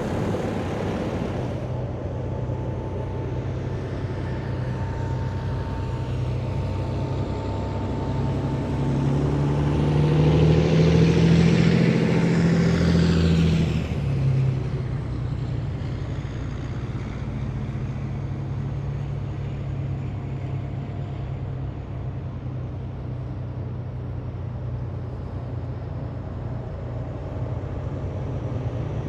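Heavy military vehicles driving past in a column, their diesel engines running with a steady low drone. One passes close from about nine to fourteen seconds in, the loudest part, its engine pitch rising and then falling as it goes by.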